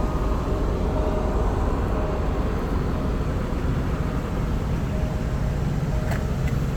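Jaguar XKR's supercharged V8 and road noise, a steady low rumble while driving, with two faint clicks about six seconds in.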